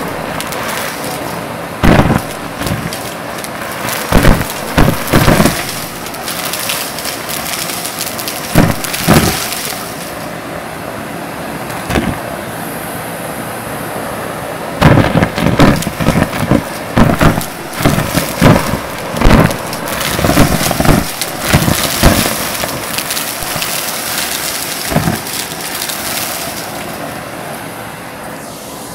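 Vacuum cleaner running with a steady rushing hiss, while debris sucked into it clatters and cracks in irregular bursts, bunched in clusters.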